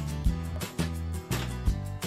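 Background music with a steady beat: sustained bass notes under regular drum hits.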